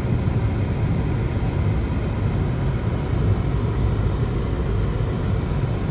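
A car being driven, heard from inside: a steady low rumble of engine and road noise.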